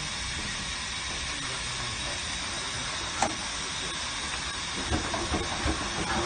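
Steady hiss of steam escaping from standing steam rollers, with one sharp click about three seconds in.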